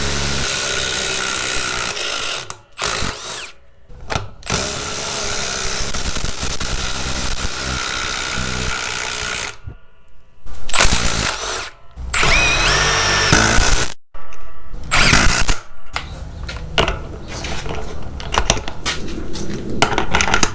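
Cordless brushless impact drivers hammering lag screws into a wooden beam. They run in several bursts, the longest about five seconds, with short pauses between.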